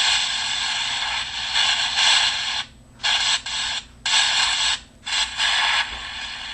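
White-noise static played from an app: a loud, even hiss that cuts out briefly three times between about two and a half and five seconds in.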